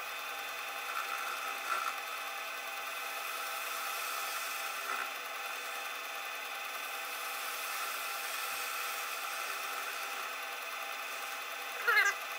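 A machine tool's motor running steadily while it cuts metal, with a light rubbing, scraping noise. There are a few short squeaks along the way and a louder one near the end.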